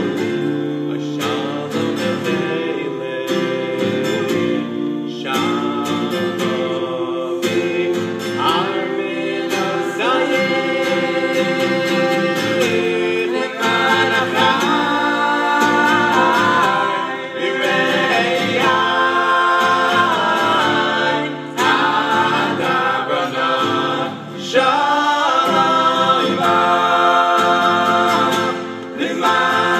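A small group of men singing a song together in harmony, accompanied by a strummed acoustic guitar.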